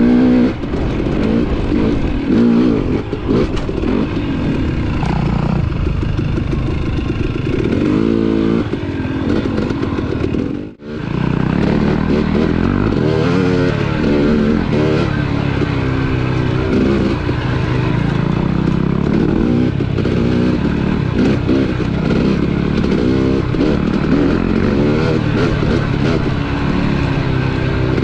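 KTM 250 dirt bike engine revving up and down over and over as the bike is ridden along a rough trail, its pitch rising and falling with each throttle change. The sound breaks off for a moment about eleven seconds in.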